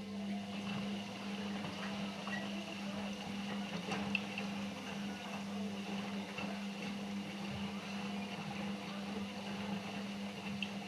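Narrow 4 kg Indesit washing machine running: a steady hum at one pitch over a wash of water noise.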